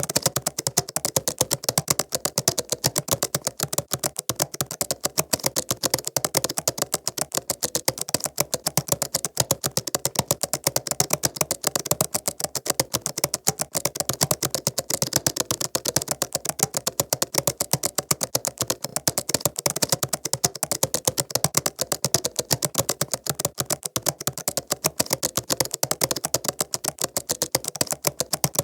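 Continuous fast typing on a laptop keyboard: a dense, steady stream of light key clicks, several per second.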